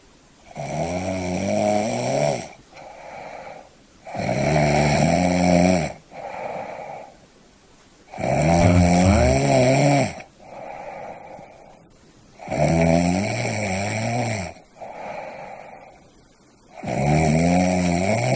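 Snoring in a steady rhythm: five loud snores about four seconds apart, each about two seconds long with a wavering pitch. Each of the first four is followed by a shorter, softer breath.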